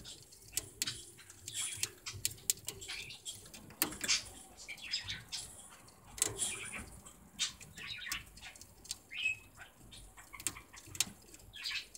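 Budgerigar gnawing a sugarcane chew: irregular crisp clicks and crunches of its beak biting into the fibrous cane, with a brief high note about nine seconds in.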